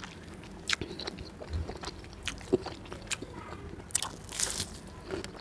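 Close-up eating sounds: chewing with wet mouth clicks, then a crunchy bite into a piece of crispy batter-fried tofu about four seconds in.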